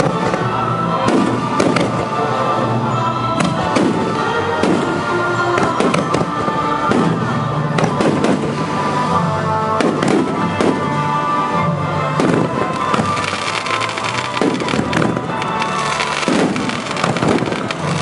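Fireworks shells bursting one after another, about one a second, over music playing, in a fireworks display set to music.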